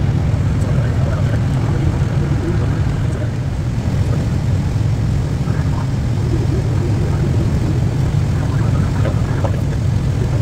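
Steady low rumble of cockpit noise on an aircraft descending on approach, from airflow and engines.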